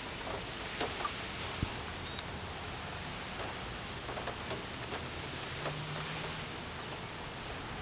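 Steady rain falling, an even hiss with scattered drips.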